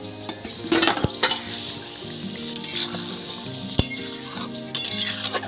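Fish curry in mustard gravy bubbling and sizzling in a metal kadai, with a few sharp clinks of a spatula against the pan.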